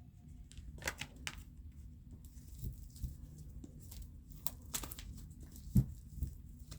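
Oracle cards being handled and drawn from the deck: scattered light clicks and paper rustles, with one sharper tap a little before the end.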